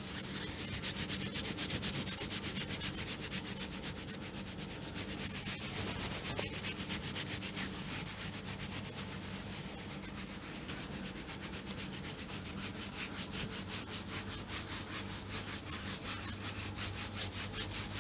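Hands rubbing over the body in a massage, a continuous run of quick, rhythmic rubbing strokes.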